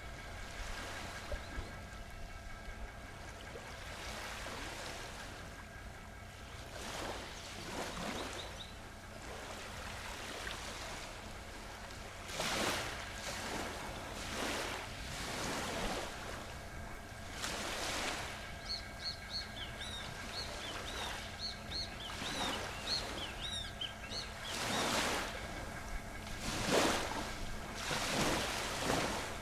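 Ocean waves breaking and washing in, swelling every few seconds, with a run of short, high bird chirps in the middle and a faint steady hum beneath.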